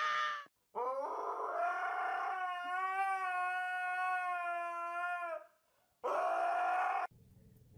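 Husky-type dog howling. One long howl rises at the start and then holds steady for about four and a half seconds, and a second, shorter howl follows about half a second later.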